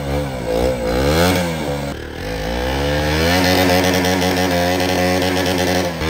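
KTM Duke motorcycle engine revving hard under load as it climbs a muddy grass slope, with the rear wheel spinning and throwing mud. The revs waver up and down, drop about two seconds in, then climb and hold high.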